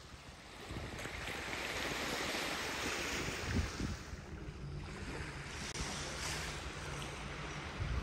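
Gentle surf of a calm Baltic Sea washing onto a sandy beach, a steady wash that swells about a second in, with wind rumbling on the microphone.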